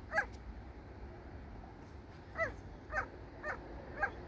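An unseen animal giving five short calls that bend in pitch: one just after the start, then four in quick succession in the second half. A steady low rumble runs beneath.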